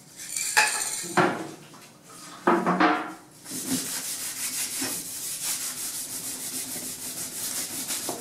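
A few clanks as metal trim strips are handled, then a rag is rubbed back and forth along a painted steel trim strip in quick repeated strokes, wiping it down with acetone to degrease it before dyeing.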